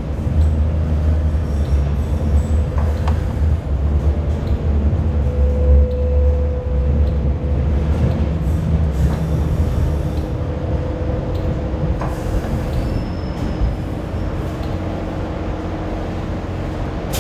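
Kawasaki-built Hong Kong Light Rail car running along the track, heard on board: a steady low rumble, with a faint thin tone that comes and goes.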